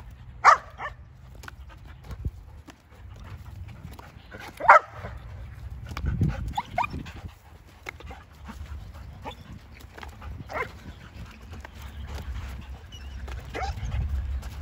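Dogs giving a handful of short, excited barks as they play, leaping for a tossed balloon. The loudest bark comes about five seconds in, over a steady low rumble.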